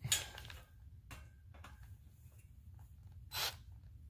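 An air return grille being handled and fitted against a wall opening: a sharp click at the start, then faint rubbing and a few small ticks, with a short rustle about three and a half seconds in.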